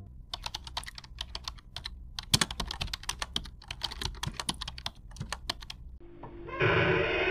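Computer keyboard typing sound effect: a run of quick, irregular key clicks. The clicks stop about six seconds in, when synth music begins.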